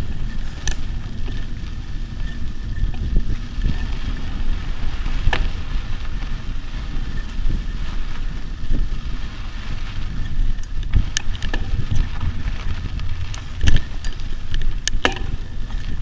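Mountain bike rolling fast along a dry dirt and gravel trail: a steady low rumble of wind on the camera's microphone with the crunch of tyres on loose ground. Several sharp rattles as the bike hits bumps, the loudest a little before the end.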